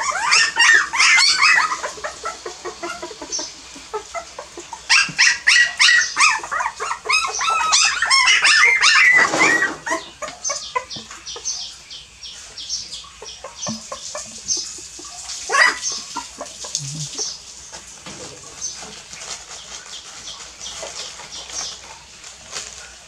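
Several young puppies yipping and squealing as they play-fight. The calls come thick and fast in the first second or so and again from about five to nine seconds in, then thin out to scattered, quieter yips.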